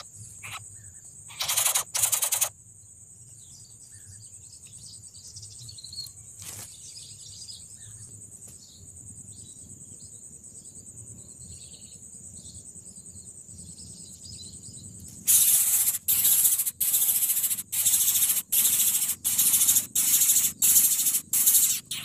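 Greater coucal nestlings giving harsh, hissing begging calls: one long burst just over a second in, then, after a quieter stretch with faint chirps, a run of loud calls about twice a second. A steady high insect drone lies underneath.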